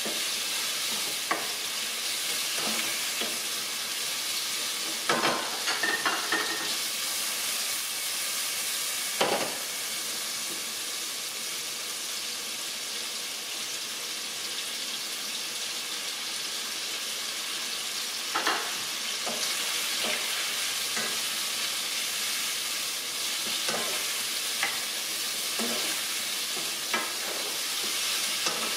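Shrimp searing in hot olive oil in a pan over a strong flame, a steady sizzle. Short clinks of a utensil against the pan come now and then as they are stirred.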